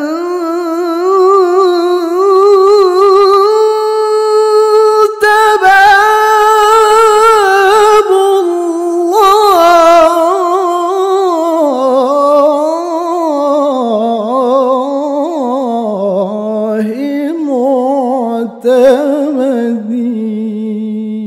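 A solo voice singing a long, ornamented melisma in a qasidah, with no clear words, held with vibrato. The pitch stays fairly level for the first half, then winds downward and settles lower near the end.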